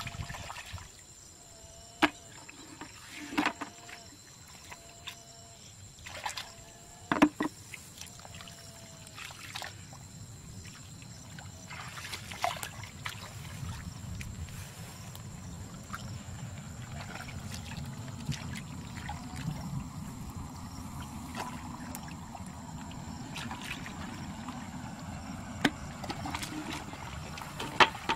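Hands groping through shallow muddy water and mud, with irregular splashes and wet squelches. The water churns more steadily in the second half.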